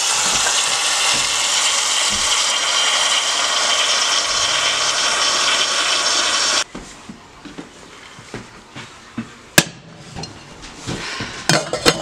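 Tap water running into a stainless steel saucepan, a steady loud rush that stops abruptly about six and a half seconds in. After it come a few sharp knocks and clinks as the pot is handled, the loudest about three seconds later.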